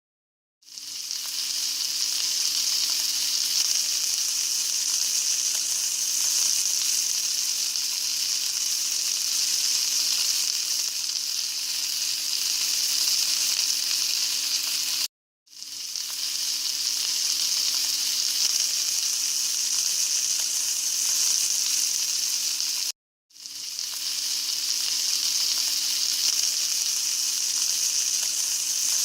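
Wagyu flank steak sizzling on a hot grill: a steady hiss that cuts off abruptly about halfway through and again near the end, coming back in each time. A faint steady low hum runs beneath it.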